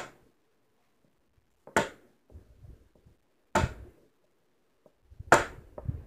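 A foam cup hung as a toy bell, tapped by hand four times at even intervals of just under two seconds: sharp, short strikes that die away quickly, the last one the loudest. Small knocks and rustles between the strikes.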